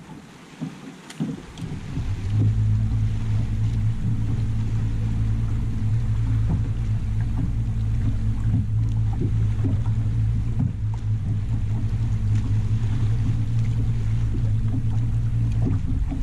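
Bow-mounted electric trolling motor on a bass boat running steadily, a low hum that starts about two seconds in and drops away near the end, with water lapping at the hull.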